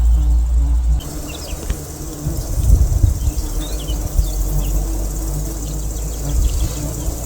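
Small birds chirping in short calls over a steady hum of insects, with an uneven low rumble underneath that changes abruptly about a second in.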